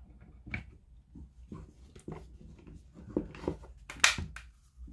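Black plastic housing of a cordless drill being handled and pressed together by hand: scattered light clicks and taps of plastic, with two sharper clacks about four seconds in.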